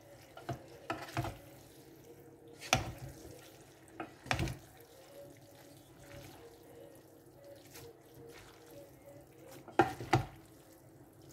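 Spaghetti in sauce being stirred and tossed with two wooden spatulas in a nonstick pot, with scattered sharp knocks of wood against the pot: a few in the first seconds, some around three to four seconds in, and two near the end. A faint steady hum runs underneath.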